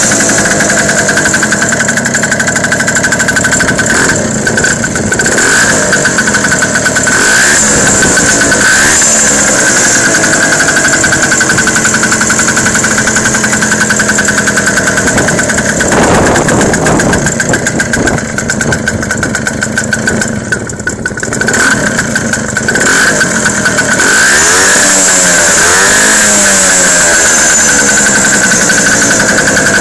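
Babetta 210 moped's single-cylinder two-stroke engine, fitted with a shortened exhaust, revved loudly up and down again and again, its pitch rising and falling several times and easing off for a few seconds past the middle.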